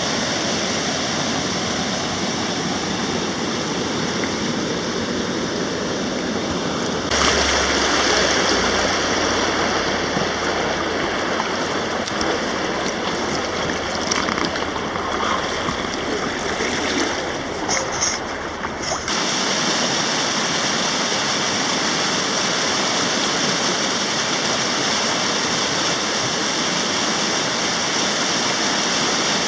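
Whitewater river rapids rushing steadily. From about seven seconds in to about nineteen seconds the rush is louder, with a deeper rumble underneath.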